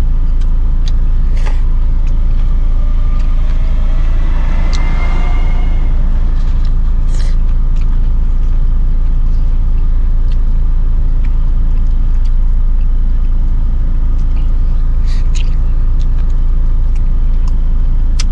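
Steady low rumble of road traffic, with a vehicle passing about five seconds in and a few light clicks.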